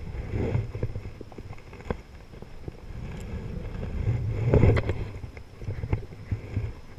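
Water sloshing around a wading angler, with irregular clicks and knocks from handling a spinning rod and reel. The sloshing swells louder briefly about four and a half seconds in.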